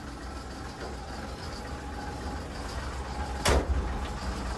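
Old water-tanker truck's engine running with a steady low rumble, heard from inside the cab. One loud bang about three and a half seconds in.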